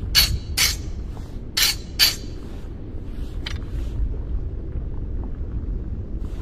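Hatchet blade being sharpened: short scraping strokes of a sharpening tool along the steel, coming in two quick pairs with a faint metallic ring, then one lighter stroke. A steady low rumble runs underneath.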